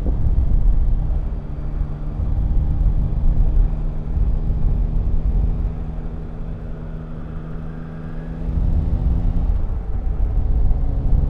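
Motorcycle engine running under way, with low wind and road rumble. The engine note is steady, eases off from about six seconds in, picks up again at about eight and a half seconds, and changes pitch at about nine and a half seconds.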